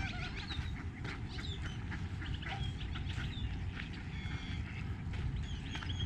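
Ducks quacking and calling, mixed with short, high chirps from small birds, over a steady low rumble.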